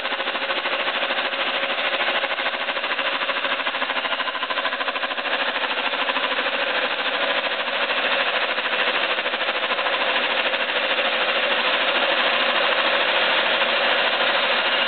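Stanko 6T10 milling machine running at 800 RPM while its Sandvik face mill skims an aluminium 110cc motorcycle cylinder head: a steady machining noise of the cutter working through the metal, over the machine's motor and gearbox hum, growing slightly louder toward the end.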